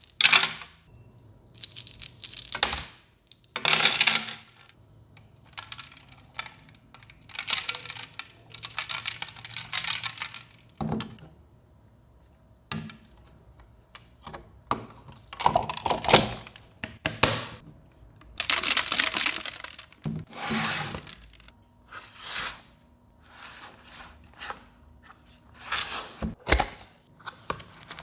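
Unboxing handling noises: irregular rustling and crinkling of packaging, with knocks and clicks of the box and plastic parts being set down.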